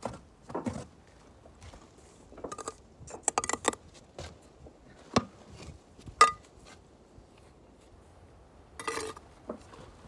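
Bricklaying sounds: a steel trowel scraping mortar and knocking against bricks, heard as scattered scrapes and clinks. Two sharp metallic taps ring out in the middle.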